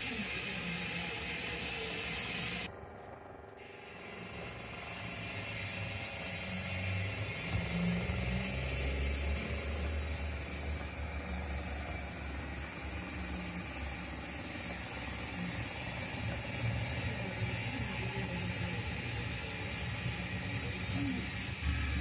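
0 gauge model passenger train running through the station: a low rumble of motor and wheels that builds from about a third of the way in, over a steady hiss, with a mechanical clicking. The sound dips briefly about three seconds in.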